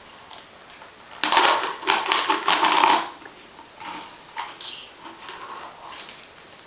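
Ball rattling and clattering inside a plastic cat toy as a cat bats at it: a dense run of rapid clatter for nearly two seconds, then scattered light taps and clicks.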